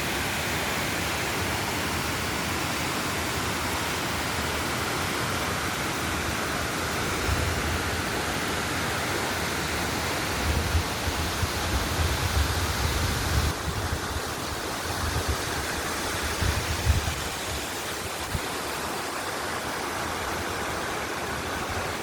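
A 120 ft waterfall pouring, a steady, even rush of falling water. Irregular low rumbles come and go through the middle.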